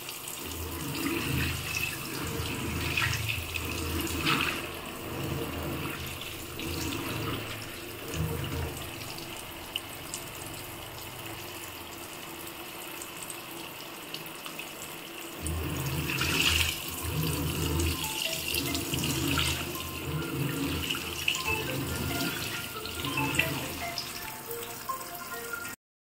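An LG T80SJBK1Z top-load washing machine's jet-spray nozzle runs a steady stream of water into the drum on tap pressure alone. The wash pulsator churns the wet clothes in spells of low rumble, which pause briefly a little past the middle.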